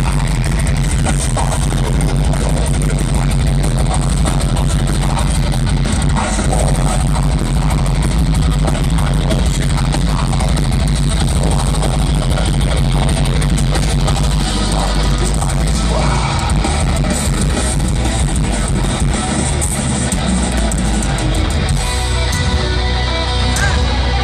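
Live melodic death metal band playing through a festival PA, with distorted electric guitars and heavy bass, recorded from the crowd with real bad, muddy sound.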